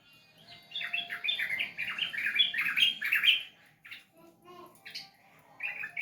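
Yellow-vented bulbul (trucukan) singing: a fast run of chirping notes for about three seconds, followed by a few single short calls.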